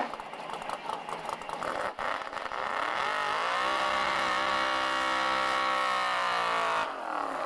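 Drag-racing Chevrolet Chevelle's engine revved hard during a burnout, the rear tyres spinning and smoking on the start line. The revs rise steeply about three seconds in, hold high and steady for some four seconds, then drop away near the end.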